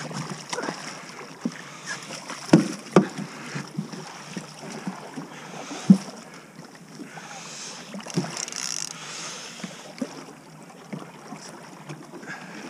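A hooked sturgeon splashing and thrashing at the surface right beside a small boat as it is brought in, with scattered sharp knocks, the loudest about two and a half and six seconds in, and a spell of splashy hiss near the end.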